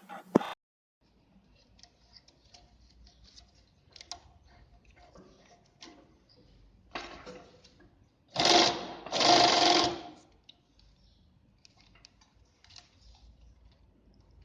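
GJ2-2 straw sewing machine running in two short bursts about eight seconds in, after a stretch of faint clicks and handling noises. It is a test run just after the stitch length has been set and its screw locked.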